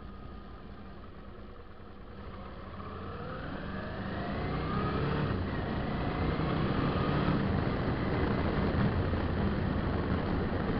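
Suzuki V-Strom 650's V-twin engine pulling away, its note rising and growing louder from about two seconds in, then running steadily with a constant rush of noise.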